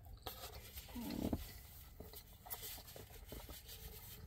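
Faint eating sounds: quiet chewing with small clicks and taps as a fork and a plastic takeout food bowl are handled.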